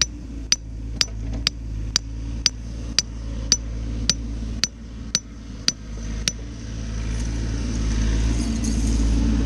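Bobcat mini-excavator's diesel engine running steadily, with sharp metallic clicks about twice a second that stop about six seconds in. After that the engine gets louder as it picks up.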